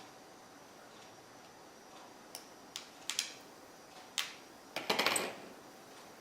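Small clicks and a short scrape of plastic and metal phone parts being handled and pressed together by hand: a few sharp ticks between about two and four seconds in, then a longer scraping rattle around five seconds.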